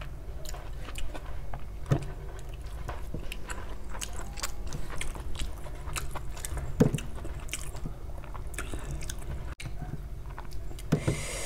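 Close-miked chewing of a mouthful of rice and egg curry, with many small wet mouth clicks and two louder clicks about two and seven seconds in.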